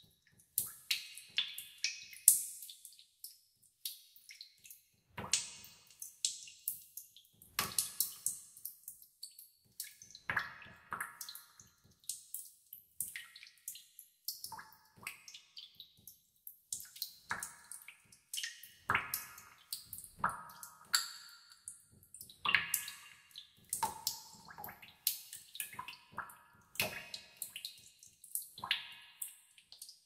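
Water droplets dripping in a cave, a few drips a second at uneven intervals, each one ringing on with echo.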